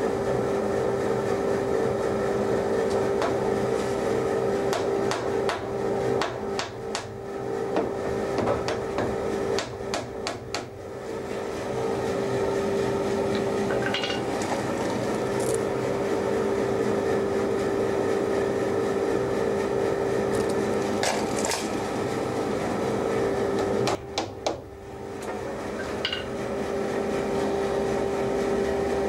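Hammer tapping small nails to tack thin wooden battens onto a boat's building moulds, in several short bursts of taps. A steady machine hum runs underneath.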